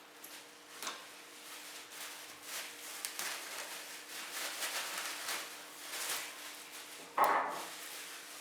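Household handling sounds: a series of light rustles and small knocks, with one louder knock or clatter about seven seconds in, over a faint steady hum.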